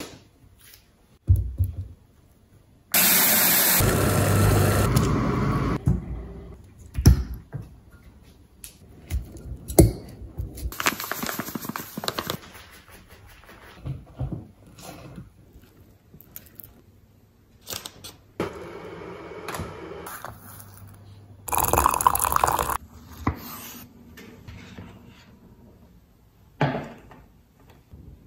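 Kitchen work sounds: tap water running at the sink for about three seconds, then shorter gushes of water later on, with scattered knocks and clinks of dishes and utensils on the counter in between.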